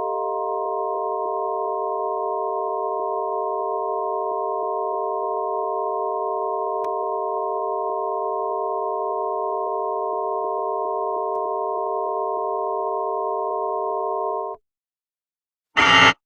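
Emergency Alert System attention tone, played as a steady chord of several held tones that cuts off abruptly about 14 seconds in. After a second of silence, a short, loud, harsh burst of data-like noise sounds near the end.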